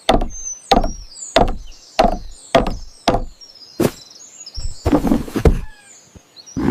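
A series of sharp, hard knocks, about one every two-thirds of a second, with a quicker cluster of several knocks about five seconds in. Faint high chirps sound above them.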